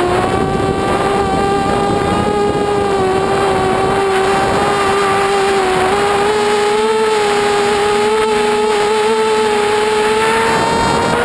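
FPV mini quadcopter's brushless motors and propellers whining steadily, picked up by the onboard camera, with a constant rush of air. The whine wavers slightly and rises in pitch near the end as the throttle comes up.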